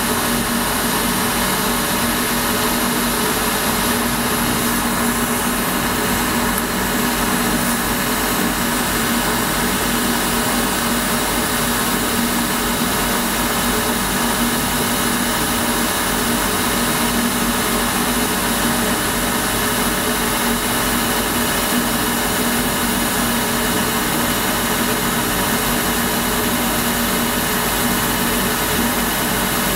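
A BF45 milling machine converted to CNC runs steadily, its end mill cutting along the edge of a metal link plate.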